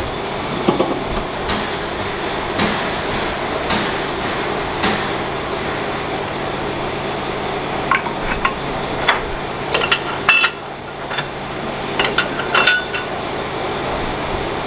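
Steady hiss and low hum at a steam locomotive, with four sharp metallic strokes about a second apart, then a scatter of light metal clinks and clicks.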